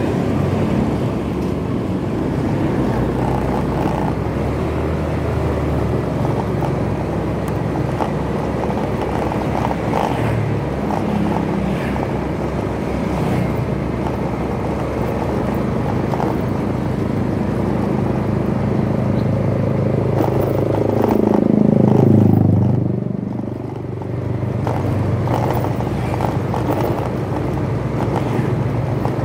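Motorcycle riding in traffic: steady engine and road noise. About two-thirds of the way through, another vehicle passes close by, swelling in level and then falling away.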